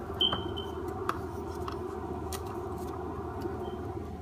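Steady room hum with a few light clicks and a brief high squeak just after the start.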